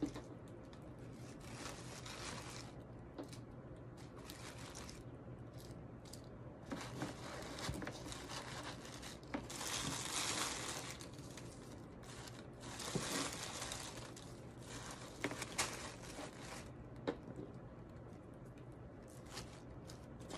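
Rustling and crinkling of red shredded paper filler, tissue paper and the filler's plastic bag as hands pack soap bars into a box, in several separate bursts with a few light taps between.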